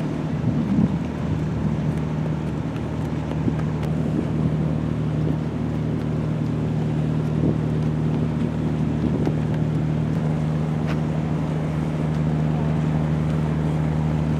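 Cruise boat's engine running with a steady low hum, heard from on deck, with some wind on the microphone.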